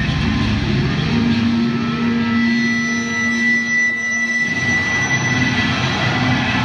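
Electric guitar feedback ringing at full concert volume: a long held low note and a high steady whine over a noisy distorted wash, with the deep bass dropping away for a moment before the band comes back in near the end.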